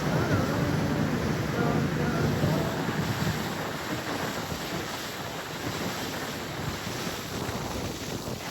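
Wind buffeting the microphone over the steady drone of a motorboat's engine and rushing water, on a boat under way.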